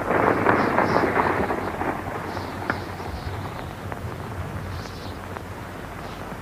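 A group of horses galloping, their hoofbeats a dense clattering rumble that fades away over the first couple of seconds, leaving a fainter rumble with a few scattered hoof clatters.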